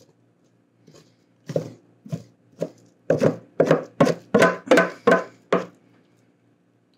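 Wooden spoon scraping and knocking sticky bread dough out of a metal mixing bowl, a series of short strokes that come faster and louder from about three seconds in, around three a second.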